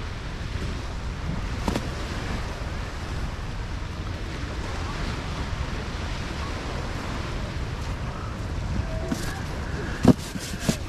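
Steady wash of surf and wind on the microphone. About ten seconds in comes a sharp knock, the loudest sound, followed by a few clicks as a styrofoam cooler box is handled.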